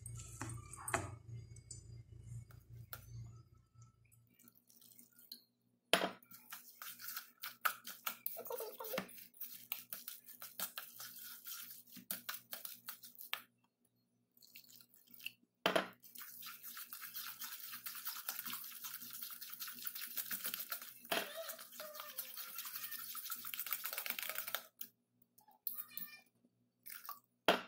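Metal spoon stirring and scraping through a wet mix of grated raw potato and flour in a stainless-steel bowl, with a few sharp clinks against the bowl's side. Water is poured in from a jug partway through, giving a stretch of steady hiss.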